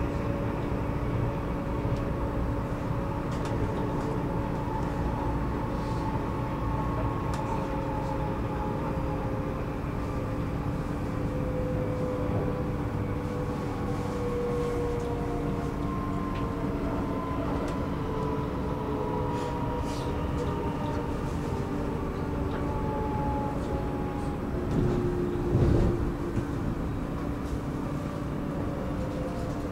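Electric commuter train running on the rails: a steady rumble with a constant hum and a motor whine whose pitch slowly falls over many seconds. A brief louder noise comes near the end.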